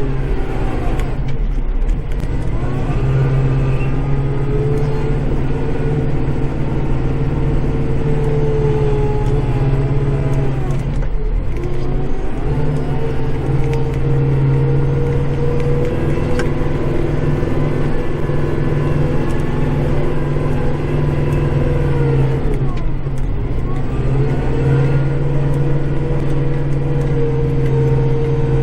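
Kubota tractor's diesel engine running steadily, heard from inside the cab while pushing snow. Three times its pitch sags and then climbs back: about a second in, around the middle, and again later.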